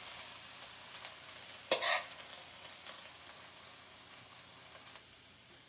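Salmon hash sizzling in a frying pan, a steady hiss that slowly dies down as the pan sits off the heat. A brief louder sound about two seconds in.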